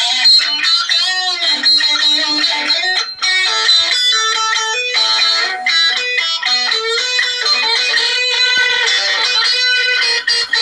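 Stratocaster-style electric guitar playing a lead line, with bent notes and wide vibrato, heard played back through a computer's small speakers with no bass.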